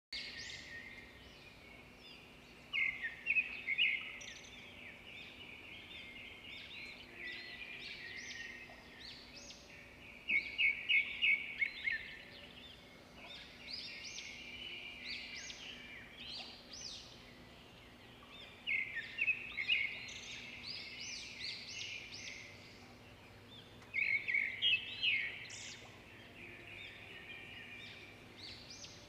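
Birds chirping and singing: many short, quick calls, with several louder bursts of fast repeated chirps.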